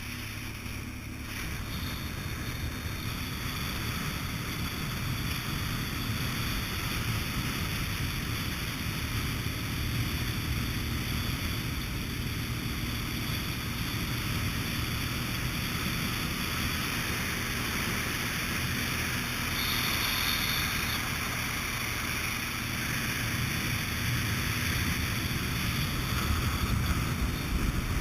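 A steady engine rumble under continuous rushing noise and wind buffeting the microphone, as heard riding in a moving vehicle or boat.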